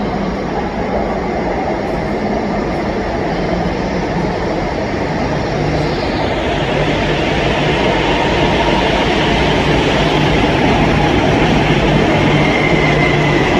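Rodalies electric commuter train running into an underground station platform and passing close by, its rumble growing louder as it comes alongside. A steady low hum sets in about halfway through, and a faint whine falls slightly in pitch near the end.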